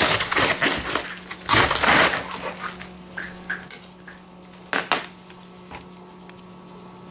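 Raw head of cabbage being sliced with a plastic lettuce knife: a quick run of loud, crisp crunches over the first two and a half seconds as the blade goes through the leaves. After that come a few scattered clicks and one sharp knock about five seconds in.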